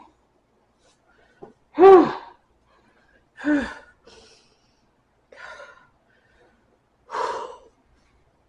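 A man's pained gasps from the burn of very spicy ramen noodles: four short bursts, one every one and a half to two seconds, the first about two seconds in the loudest and voiced, the later ones breathier.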